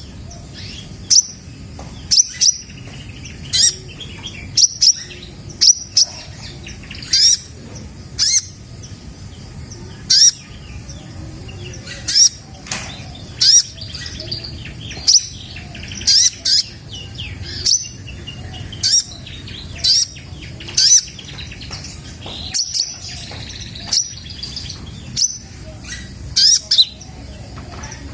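Red-breasted 'kolibri ninja' sunbird giving short, sharp high-pitched chirps, repeated about once every second or so.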